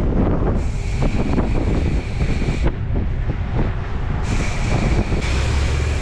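Wind buffeting the camera microphone during a mountain-bike ride, with a steady low rumble and frequent knocks and rattles over rough ground. A high hiss comes and goes twice, each time for about two seconds.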